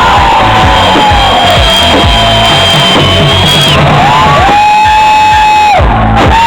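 Loud music with a steady low beat and long held notes. One note slides up and holds about four and a half seconds in, then breaks off about a second later.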